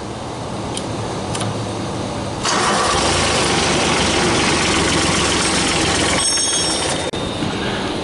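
Electric starter cranking a diesel mower engine on newly made battery cables. The cranking starts suddenly about two and a half seconds in and stops about six seconds in.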